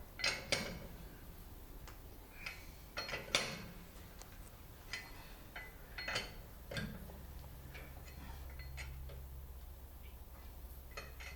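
A few sharp clicks and knocks, scattered and irregular, the loudest near the start and about three seconds in, with a faint low hum coming in about seven seconds in.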